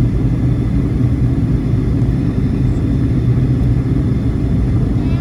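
Steady rumble of a jet airliner's engines and rushing air, heard from inside the passenger cabin during the descent to land.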